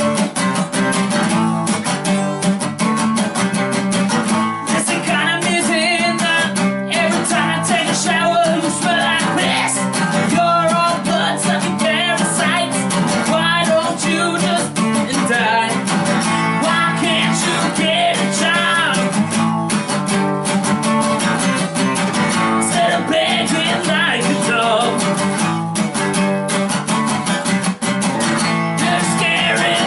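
Steel-string acoustic guitar strummed fast and steadily, chords ringing. A voice sings along from about five seconds in.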